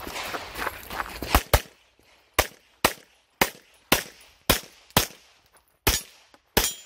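Footsteps crunching on gravel for about a second, then a CZ Shadow 2 pistol fired ten times in quick succession, mostly in pairs about half a second apart: a shooter engaging targets two rounds each.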